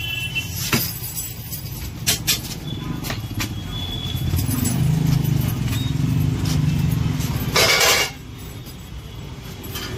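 A bundle of steel motorcycle wheel spokes clinking as it is handled and carried, in a few sharp metallic clicks over the first few seconds. A nearby engine drones through the middle, and a short loud burst of noise comes near the end.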